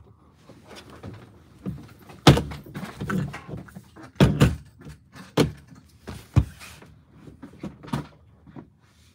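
A series of hard thumps and slaps on a desktop, a second or so apart: a large bug crawling across the desk being swatted until it is dead.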